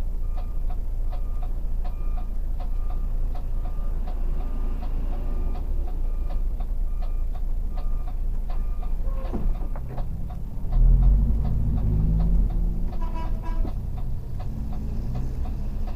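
A bus's turn-signal indicator ticking with an even tick-tock over a steady low engine hum; about eleven seconds in the Mercedes-Benz O500RS 1836 bus's engine rises into a louder rumble as the bus pulls away.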